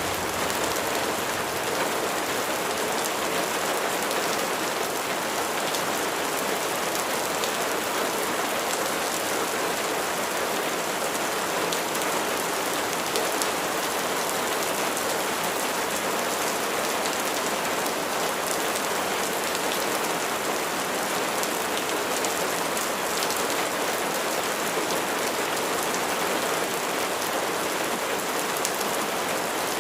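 Steady rain falling on a surface, a dense even patter with scattered individual drops.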